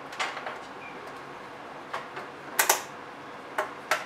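Plastic and metal strap clips clicking and clacking as a carry strap is hooked onto a roaming photo booth's round frame. A few sharp clicks come scattered through, the loudest a quick double click about two and a half seconds in, then two more near the end.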